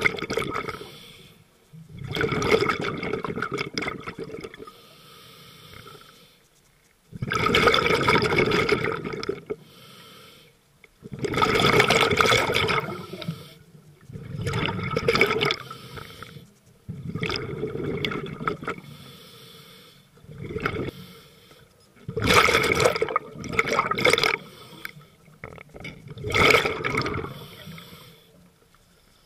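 Scuba diver breathing through a regulator underwater: a loud gush of exhaled bubbles every few seconds, about nine in all, with a quieter hiss of inhalation between them.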